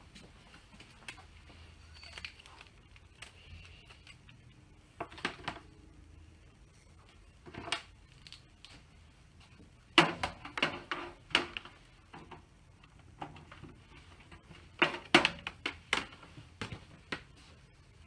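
Scattered clicks and knocks of computer cables and connectors being handled behind a desktop PC, in groups: about five seconds in, near eight seconds, a louder run from ten to eleven and a half seconds, and another from fifteen to seventeen seconds.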